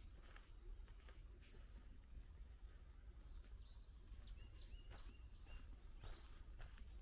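Faint outdoor ambience of small birds singing: short falling chirps and whistles, several in a row about halfway through, with soft footsteps on a dirt path and a low rumble underneath.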